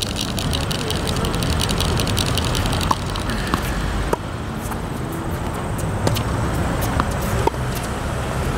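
Tennis rally on a hard court: sharp pops of the ball struck by racquets and bouncing on the court, several times over a few seconds, above a steady low rumble.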